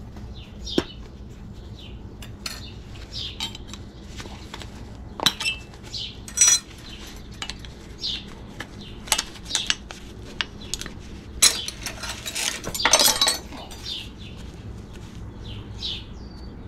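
Scattered metal clinks and clicks as a brass-and-copper fitting and hand tools are handled and knocked about at a workbench. About two-thirds of the way through comes a longer stretch of ringing, rattling metal.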